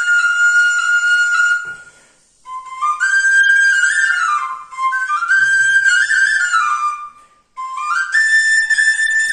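Solo bansuri (bamboo flute) playing a Pahari folk melody: high phrases of notes stepping up and down, with two short pauses, about two seconds in and about seven seconds in, the last phrase climbing to a long held high note.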